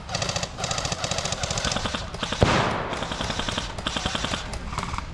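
Airsoft guns firing rapid full-auto bursts, several in a row, with one sharp louder bang and a brief hiss about halfway through.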